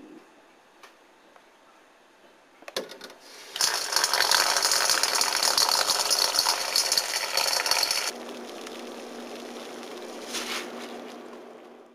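A few faint clicks, then running tap water splashing onto lettuce leaves in a bowl for about four seconds, cut off abruptly. Then a pot of water at a rolling boil, bubbling over a steady low hum.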